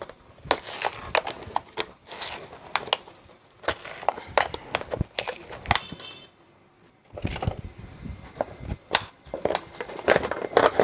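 Irregular scraping, crackling and clicking as the burnt old voice coil and its dried glue are prised loose from the centre of a 15-inch paper-cone speaker, by fingers and then a thin metal tool. There is a short pause just past the middle.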